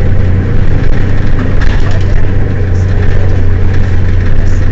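Mercedes-Benz Citaro city bus engine running at a steady pitch with a loud low drone, a few light rattles over it.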